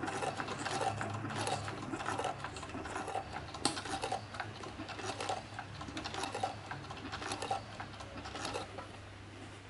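Heavy-duty cylinder-bed sewing machine stitching through leather: a fast run of needle strokes over a steady motor hum. The stitching stops near the end, leaving only the hum.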